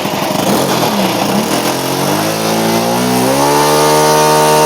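OS FS-91 Surpass II four-stroke glow engine on a model airplane, spinning a two-blade propeller during a ground test run. It runs slow and uneven at first, then is throttled up in two steps about two and three seconds in, and holds a steady high-rpm note.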